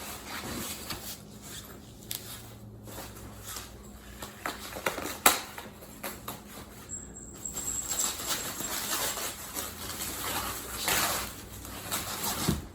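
Rustling and handling noises of a guitar gig bag being opened and the guitar lifted out, with a sharp click about five seconds in.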